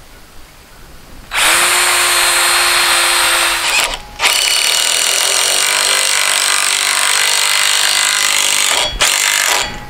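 DeWalt cordless drill boring into a wooden post through a steel bracket: it runs for about two seconds, stops briefly, runs again for about five seconds, then gives a short burst near the end.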